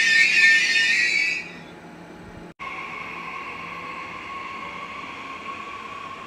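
Loud, high metallic squeal from a red DB double-deck regional train moving along the platform, fading out about a second and a half in. After a brief cut, a quieter steady electric whine of passing trains follows.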